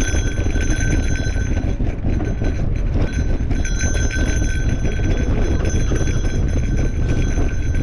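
Mountain bike rolling over a dirt trail: steady rumble of tyres and wind on the camera microphone, with the bike rattling over the bumps. A high buzz, typical of a rear hub freewheeling while coasting, runs for the first couple of seconds, drops out, then comes back from about three and a half seconds in.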